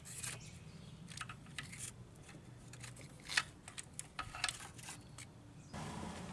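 Scattered light clicks and small rattles of parts being handled, over a steady low hum.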